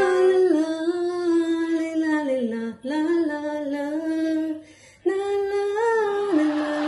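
A woman singing a slow melody in long, held notes that slide up and down in pitch, with short breaks about three and five seconds in.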